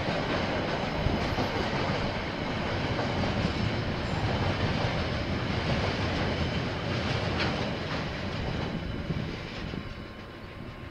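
KiwiRail freight train's container wagons rolling past over the rails, a steady rumbling noise that fades near the end as the tail of the train goes by.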